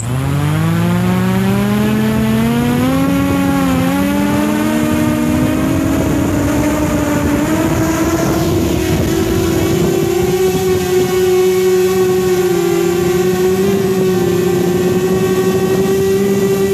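Quadcopter's electric motors and propellers, heard close up from the phone slung beneath the drone, starting suddenly and spinning up with a wavering, rising hum as they strain under the heavy phone payload, then settling into a steady, loud hum after about ten seconds.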